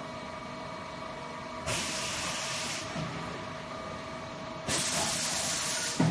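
Plastic pipe threading machine running with a steady hum, broken by two bursts of air hissing, each about a second long, about two seconds in and again near the end, as from pneumatic valves venting. A sharp knock comes right at the end of the second burst.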